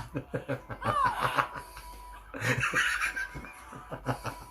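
People laughing in rapid bursts of chuckles and snickers.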